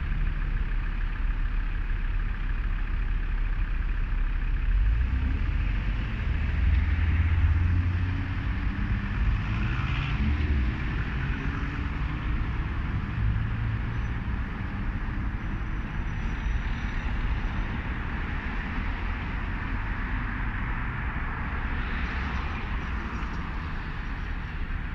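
Road traffic passing a junction: engine rumble and tyre noise from passing vehicles, with the heaviest rumble about a third of the way in and further cars going by later.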